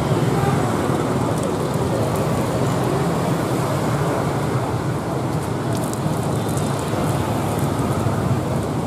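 Steady street background noise: an even rush with no distinct events.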